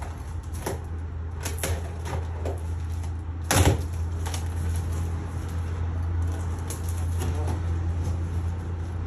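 Large cardboard shipping box being handled: its flaps bent and pushed, with scattered rustles and knocks and one sharper thump about three and a half seconds in.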